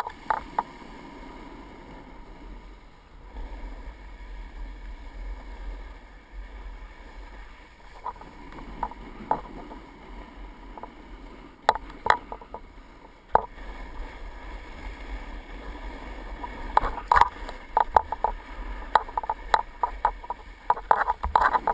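Snowboard sliding down a groomed snow slope: a steady scraping hiss of the base and edges on the snow, broken by sharp clicks and knocks that come thick and fast near the end.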